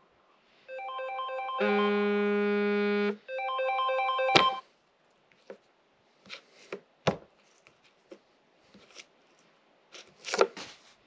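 A phone alarm ringtone plays a repeating electronic melody in short phrases. It cuts off suddenly with a sharp click about four seconds in. Scattered faint rustling and small knocks follow.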